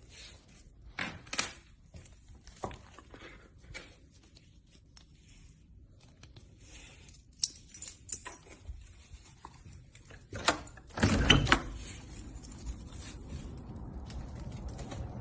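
Small metal pieces jingling and clinking in short spells, with a louder clattering rattle about ten and a half seconds in, followed by a steady low rumble.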